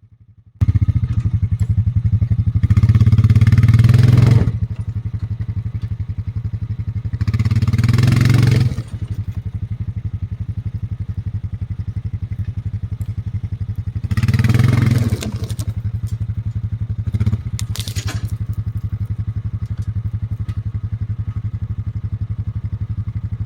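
ATV engine running under load as it tows a log on a log arch, rising three times into hard revving surges of a second or two each. A few clattering knocks come in the later part.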